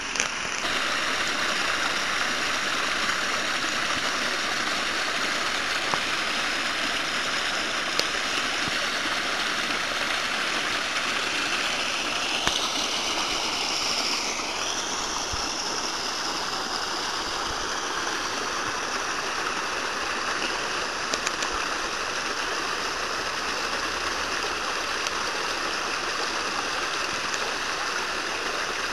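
Steady rushing of water flowing along a small stream channel, its tone shifting briefly about halfway through, with a few faint clicks.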